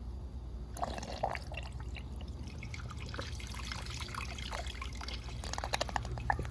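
Miniature plastic toilet flushing: small-scale water splashing, trickling and dripping that starts about a second in and stops near the end, over a steady low hum.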